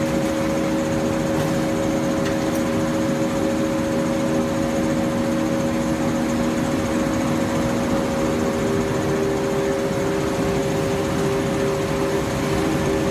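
Machinery of an automated pallet strapping and conveying line running: a steady hum of several tones over constant mechanical noise, with no separate knocks or clicks.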